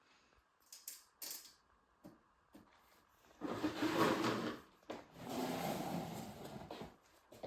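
A few light clicks, then two stretches of uneven rustling handling noise, each lasting a couple of seconds.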